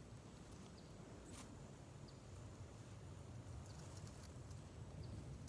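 Near silence: faint outdoor ambience with a low steady rumble, a few faint short high chirps and a faint tick about a second and a half in.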